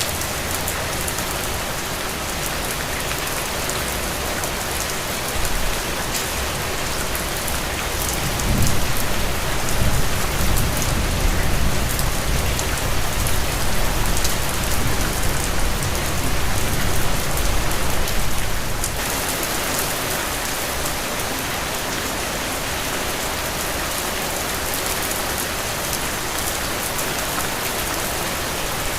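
Heavy rain falling steadily, with a low rumble of thunder rising about eight seconds in and rolling on for some ten seconds before fading back under the rain.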